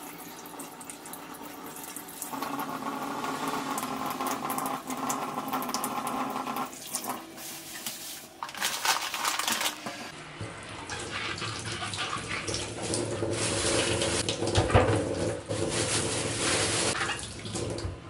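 Kitchen tap running into a stainless-steel sink as small fish are rinsed under it by hand. About ten seconds in it changes to rougher splashing with scattered knocks as a wooden cutting board is washed.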